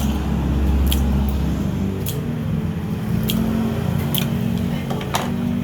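Sharp clicks and taps of kitchen utensils about once a second while a spicy salad is being made, over a steady low rumble.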